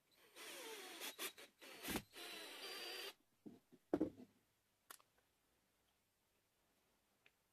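Cordless drill boring through a small wooden block, running in two bursts of about a second and a half and one second with a sharp knock between them. A few wooden knocks and clicks follow as the pieces are handled, the loudest about four seconds in.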